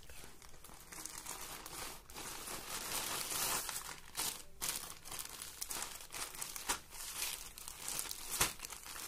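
Plastic packaging crinkling and rustling as hands open a plastic courier mailer and pull out a dress sealed in a clear plastic bag, with sharp crackles now and then.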